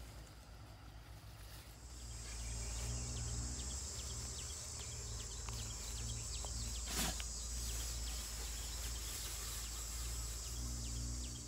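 Insects buzzing at a steady high pitch, starting about two seconds in, over a low rumble and soft rustling of grass blades brushing close to the microphone. One sharp click about seven seconds in.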